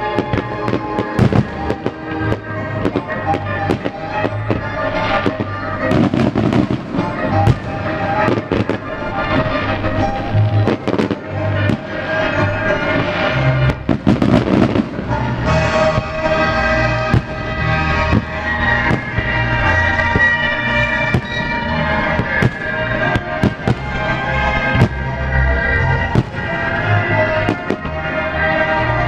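Aerial firework shells bursting one after another, sharp bangs and crackling that come thickest around a quarter of the way in and again around the middle. Music plays steadily underneath.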